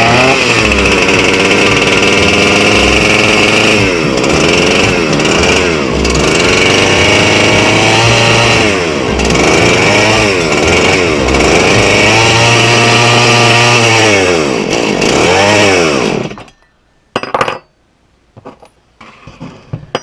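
Freshly rebuilt Husqvarna 266 two-stroke chainsaw running and being revved up and back down again and again, then shutting off about sixteen seconds in, followed by a few light clicks and knocks.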